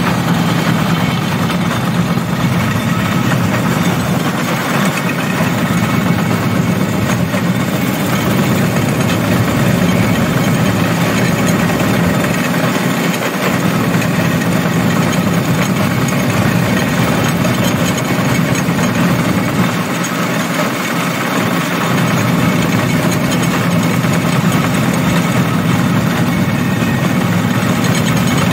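Motorized rail cart running along the track, its small engine holding a steady low drone without pauses.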